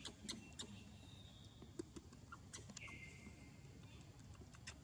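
Near silence: faint outdoor ambience with scattered soft clicks and two thin, high whistle-like calls, the second lasting close to a second, a little under two-thirds of the way through.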